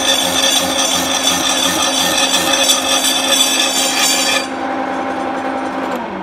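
Milling machine slitting saw cutting aluminium plate at about 165 RPM: a loud, steady cutting noise with a faint pulse about three times a second. The cutting noise stops sharply about four and a half seconds in, and near the end the machine's hum falls in pitch as the spindle slows.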